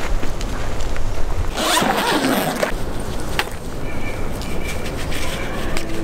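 A zipper on camping gear being pulled in one long stroke about two seconds in, with scattered handling clicks around it.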